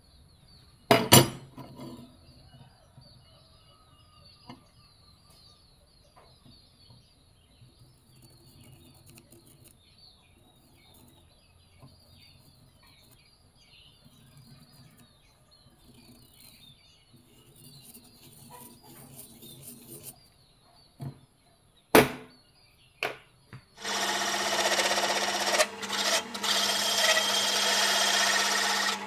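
Light scratching of a marker on a steel plate, broken by a couple of sharp metal knocks. About twenty-four seconds in, a drill press with a hole cutter starts running and cutting into the steel plate: a steady hum with a loud grinding noise.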